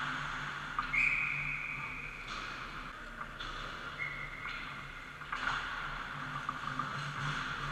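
Ice-rink sound of hockey skates carving and scraping on the ice in short hisses, over a steady low hum from the rink's machinery. A steady high tone sounds for about two seconds from a second in, and a shorter one about four seconds in.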